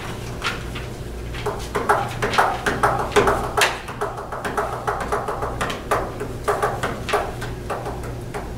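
Papers and small objects being handled: irregular rustling and light knocks, over a steady low electrical hum.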